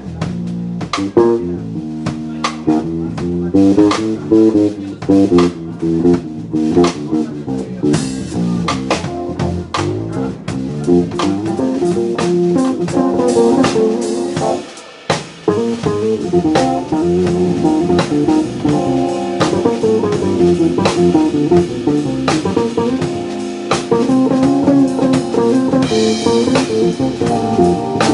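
Live band playing an instrumental jazz tune, with electric bass and drum kit to the fore. The music drops out for a moment about halfway through.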